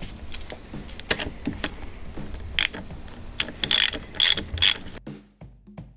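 Hand ratchet clicking in short, irregular runs as a bolt is turned into a brake caliper, cutting off abruptly about five seconds in.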